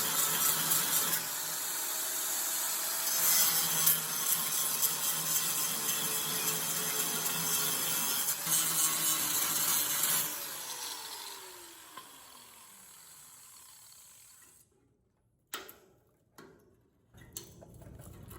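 A power cutting tool running at speed against rusty sheet steel, with a harsh, steady cutting noise. About ten seconds in it is released and its motor winds down in a falling whine. A few short knocks follow near the end.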